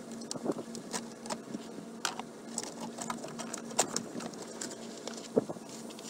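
Scattered clicks and light knocks of hard plastic as the band clamp on a Ford F-150's round air cleaner housing is loosened and the two housing halves are pulled apart and handled, over a faint steady hum.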